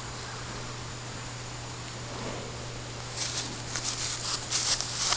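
Steady low hiss, then from about three seconds in a run of loud, crackling rustles right at the microphone as a horse's coat brushes against the camera.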